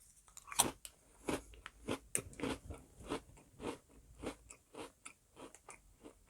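Close-up crunching and chewing of Jacob's Mini Cheddars, small baked cheese crackers: a run of short crisp crunches about two a second, getting smaller as the mouthful is chewed down.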